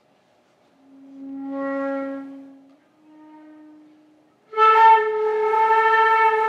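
Solo concert flute playing slow held notes: a low note swells in and fades, a softer, slightly higher note follows, then about four and a half seconds in a sudden loud, breathy attack opens a higher note that is held on.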